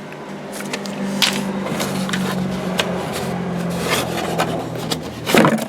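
Handling noises of a new auto belt tensioner being picked up and turned over: scattered knocks, clicks and scrapes over a steady low hum, with a louder clatter near the end.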